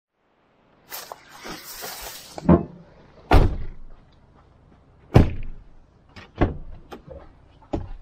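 Pickup truck door being opened and the cab entered: a string of clunks, knocks and latch clicks starting about a second in, the loudest two a little after three seconds and a little after five, with rustling and lighter clicks between.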